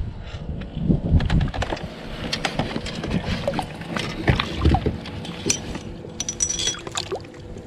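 Scattered clicks, knocks and light rattles of gear being handled aboard a fishing kayak, with a few low buffets of wind on the microphone.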